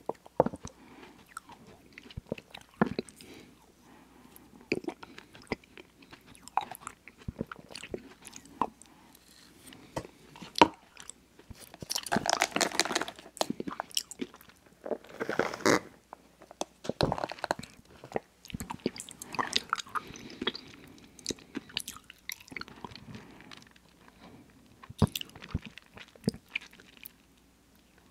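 Close-miked eating: chewing with many sharp wet mouth clicks, and two longer noisy stretches about halfway through as a drink is sipped through a straw.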